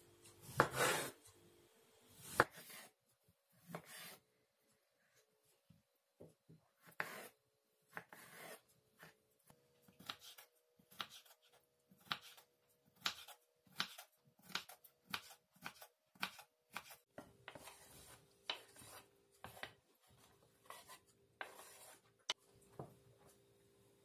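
Knife chopping pickled cucumbers on a wooden cutting board: sharp taps of the blade on the board, a few scattered ones at first, then a steady run of about two a second.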